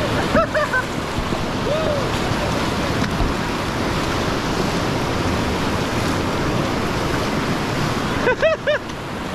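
Whitewater rushing steadily through a river rapid, with short whooping cries from paddlers about half a second in and again near the end.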